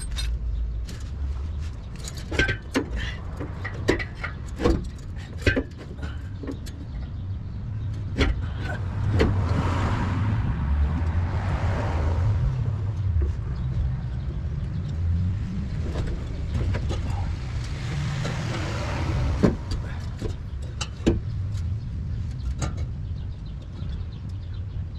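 Scattered sharp metal clanks and knocks from hands and tools working on a car's exhaust pipe as it is hung and tied up, over a steady low rumble. Twice a broad rushing noise swells and fades, like a vehicle passing by.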